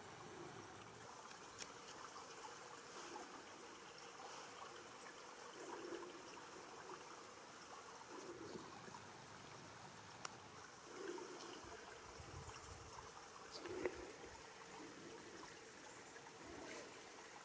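Faint trickling water, with a soft gurgle every two or three seconds and a few light ticks like drips.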